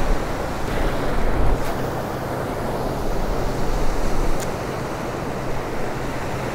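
Ocean surf breaking and washing through shallow water, a steady rushing wash, with wind rumbling on the microphone.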